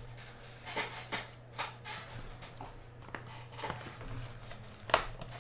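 Trading cards and packs being handled on a table: scattered soft slides and taps, with a sharper click near the end, over a low steady hum.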